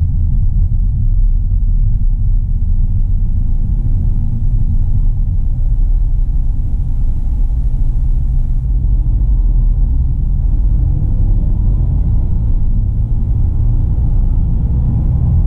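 Steady low rumble of a 2022 Mazda3 hatchback on the move: road noise and its 2.0-litre SKYACTIV-G four-cylinder engine running at a constant pace.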